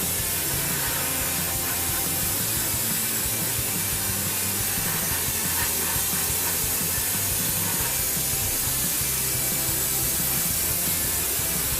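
Airbrush spraying acrylic paint in a steady hiss, over background music.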